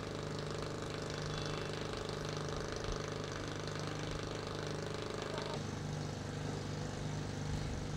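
Steady engine drone whose tone shifts abruptly about five and a half seconds in.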